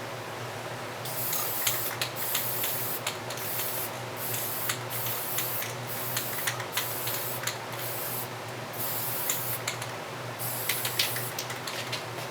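Spray paint being sprayed onto a rebuilt mower deck spindle housing in a series of short hissing bursts, each about a second long, beginning about a second in.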